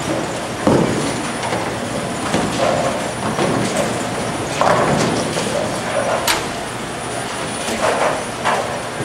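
Bowling alley sound: balls rolling down the lanes and pins clattering, with several sharp knocks and crashes, the loudest a little past six seconds in.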